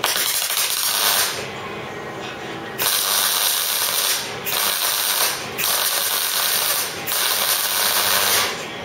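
MIG welder arc crackling as a steel wiper-linkage spindle is welded onto its bracket, laid down in five short runs of about a second to a second and a half each, with brief pauses between.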